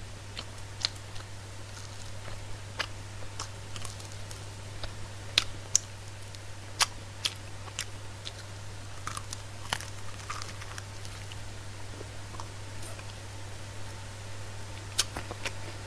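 Close-miked chewing of crispy fried chicken: scattered sharp crunches and mouth clicks at irregular intervals, over a steady low electrical hum.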